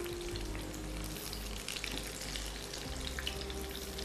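Potato-stuffed green chillies deep-frying in hot oil in a wok, a steady sizzle with a continuous fine crackle.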